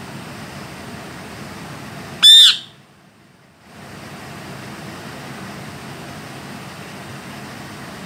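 A male rose-ringed parakeet (Indian ringneck) gives one short, loud, shrill screech about two seconds in, over a steady fan-like hiss.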